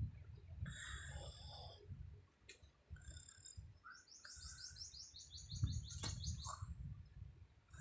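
Small birds chirping: a short high call about a second in, then a fast trill of short high notes lasting about two seconds. An irregular low rumble runs underneath.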